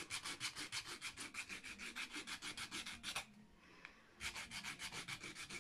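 A small wooden tree bead being sanded by hand with a strip of sandpaper: quick back-and-forth rubbing strokes, about six a second, that stop for about a second past the middle and then go on.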